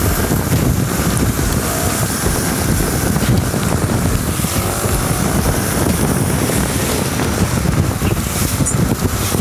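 Kawasaki Versys 650 motorcycle riding on a wet road in the rain: steady wind noise on the microphone over the running of the parallel-twin engine and the hiss of the tyres on wet tarmac.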